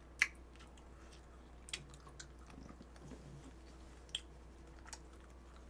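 Quiet chewing of food, with a few short sharp clicks of chopsticks against dishes; the loudest click comes just after the start.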